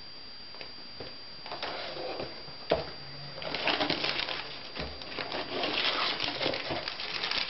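Hands rummaging in a cardboard box, rustling and crinkling cardboard and plastic-bagged parts, with scattered light knocks. It starts about a second and a half in and gets busier and louder after about three and a half seconds.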